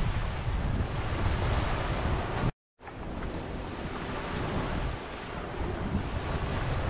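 A steady rushing ambience like surf or wind, heaviest in the low end. It cuts to total silence for about a quarter of a second about two and a half seconds in, then carries on slightly quieter.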